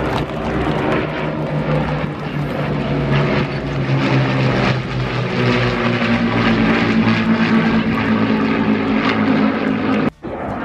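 Avro Lancaster bomber's four Rolls-Royce Merlin V12 piston engines running in a steady, many-toned engine note as it flies overhead, the pitch shifting as it passes. The sound drops out abruptly for a moment near the end.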